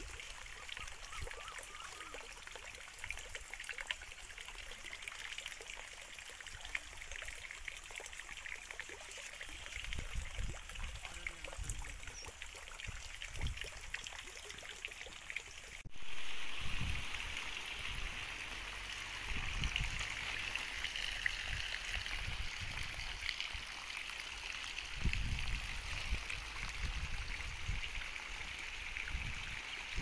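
Irrigation water trickling steadily through flooded vegetable beds, with occasional low rumbles.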